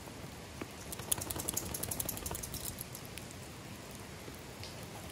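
Steady rain falling, with a quick run of sharp clicks and rustles from about a second in to near the middle, as a backpack and gear are handled.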